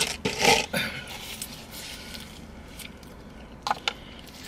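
Eating sounds: chewing, loudest in the first second, then quieter, with a couple of short sharp clicks near the end.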